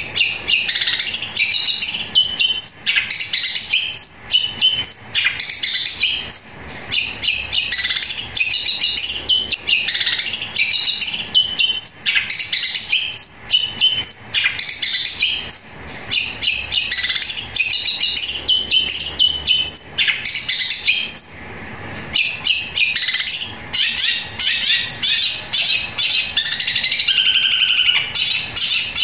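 Caged long-tailed shrike (cendet) singing a long, loud run of rapid chirps and chatter, mimicking Eurasian tree sparrow (burung gereja) calls in the continuous 'fighting' style, with one short break a little after the middle.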